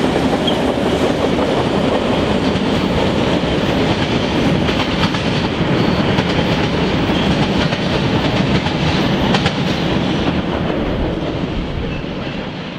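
Freight train cars rolling past, steel wheels rumbling along the rails with occasional sharp clacks over the joints. The sound fades away near the end as the tail of the train recedes.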